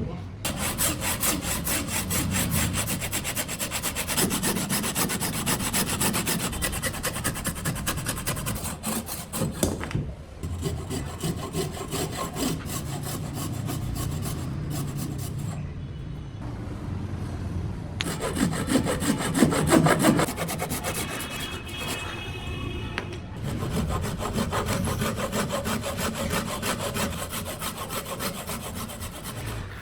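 A saw cutting through wood in repeated rasping strokes, with short breaks about ten seconds in and again near the middle.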